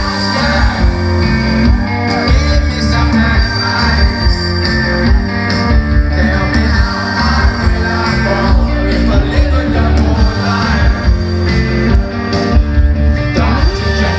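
Live rock band playing loudly: electric guitars, bass and drums under a male lead singer on a microphone, heard from the audience.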